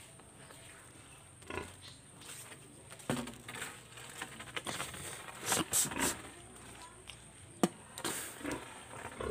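Footsteps and rustling through dry leaves and yard debris, in irregular bursts, with one sharp knock about seven and a half seconds in.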